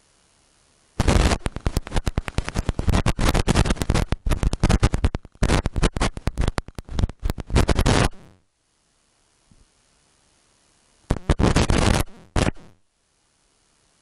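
Handling noise right on the camera's microphone: loud, rough rubbing and crackling as the covered camera is held and handled. A long stretch of dense crackles starts about a second in and stops around eight seconds, and a shorter stretch follows near the end.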